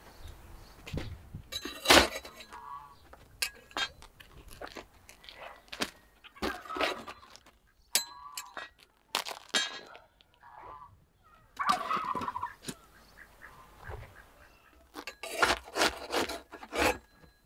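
Steel hooks scraping and clicking against the clay wall of a tandoor as baked loaves are pried loose and lifted out, with sharp, irregular crackles from the crisp crust.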